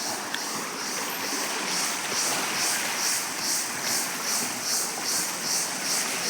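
Steady rush of river water, with a high hiss above it that pulses about two or three times a second.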